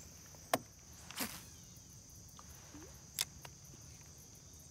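Steady high-pitched drone of insects, with three short sharp clicks and knocks, the loudest about half a second in.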